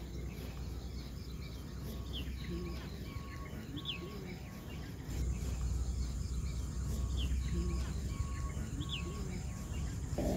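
Looped outdoor ambience of birds chirping over a low hum and a steady pulsing insect-like chirr; the same few seconds repeat about halfway through. A louder rushing noise begins right at the end.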